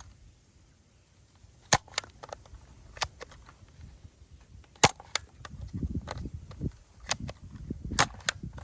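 Plastic toy gun's spring mechanism snapping, a string of sharp, irregular clicks. The loudest come about two seconds in, near the middle and near the end, with low handling rustle between them.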